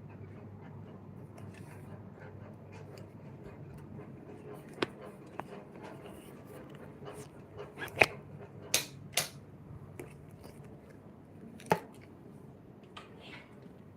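A few sharp clicks and knocks, the loudest about eight seconds in, over a low steady hum.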